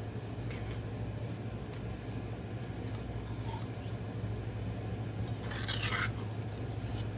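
Metal spoon scraping thick canned chili out of a tin can and into a stainless steel pot: a few faint clicks, then a louder scrape about six seconds in. A steady low hum runs underneath.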